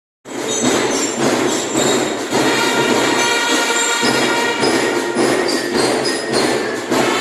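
Music with sustained chords that shift every second or so, over a dense noisy background; it starts abruptly just after the beginning.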